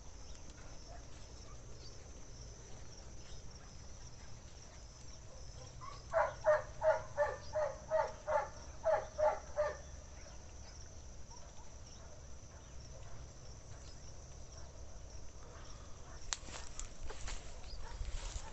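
An animal calling about ten times in quick succession, roughly three calls a second for a few seconds in the middle, over a faint steady chirring of insects.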